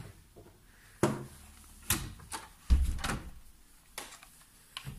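A series of irregular knocks and bumps, about half a dozen over the few seconds, with a heavy low thud about halfway through.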